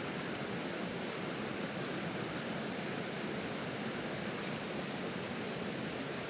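Shallow stream water rushing steadily over rocks.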